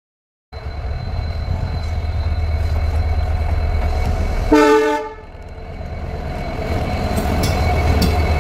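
WDG4 diesel-electric locomotive's engine rumbling steadily as it rolls past, growing louder toward the end. A short horn blast sounds about halfway through.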